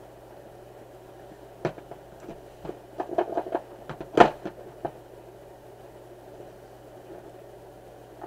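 Cardboard graphics-card box handled on a hard plastic lid. A string of light taps and knocks sounds as the box slides out of its sleeve and is set down and turned, the loudest a single sharp knock about halfway through. A steady low hum runs underneath.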